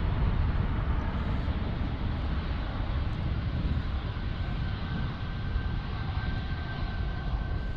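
Jet airliner engines running with a steady, deep rumble; a thin steady whine joins about four seconds in.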